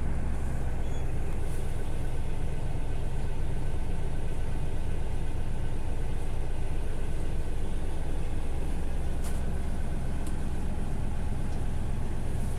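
Engine of a small river passenger boat running steadily under way, a constant low drone heard from inside the boat's cabin.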